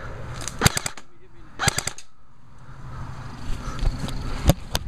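Airsoft guns firing: two quick bursts of a few sharp cracking shots about a second apart, then a single shot near the end.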